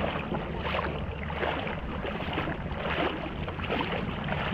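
Shallow sea water lapping and sloshing in an irregular, unbroken wash, with wind rumbling on the microphone.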